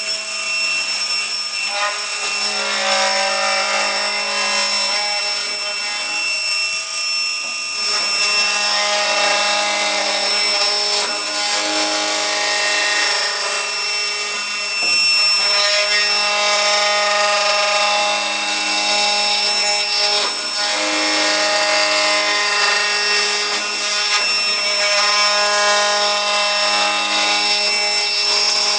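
Aluminium-joinery milling machine running at high speed with a steady high whine while it cuts an aluminium profile. The lower note of the cut changes now and then.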